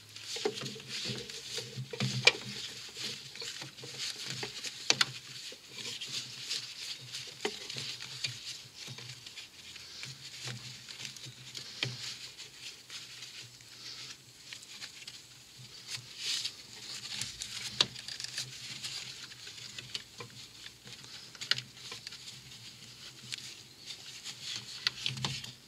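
Handling noise as a gloved hand feeds an auxiliary drive belt down past the engine: irregular rubbing, scuffing and light knocks of the belt and glove against engine parts and hoses.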